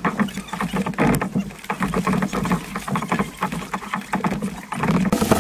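Kayak paddles dipping and splashing in river water, with quick, irregular splashes and knocks as two paddlers stroke together in a tandem kayak.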